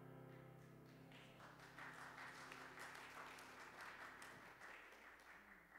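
Faint applause from a congregation over the last held chord of keyboard music. The chord stops about four seconds in, and the clapping fades out just after.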